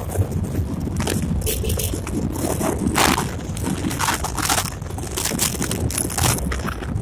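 Wind buffeting the microphone on a moving bike: a continuous low rumble with irregular crackles and rustles.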